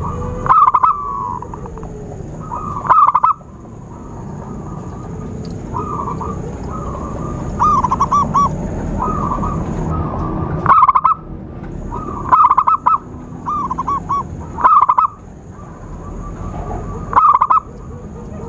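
Zebra dove (perkutut) cooing: short, rolling, bubbling coo phrases repeated every two to three seconds. A steady thin high-pitched whine sounds behind the calls, stops about ten seconds in and resumes shortly after.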